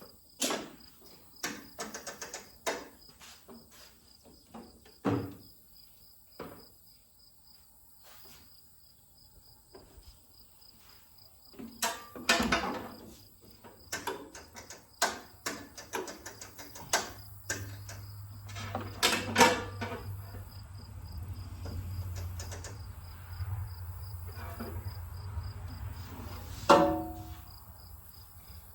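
Crickets chirping steadily, with scattered clicks, knocks and clatter throughout. A low steady hum comes in a little past halfway.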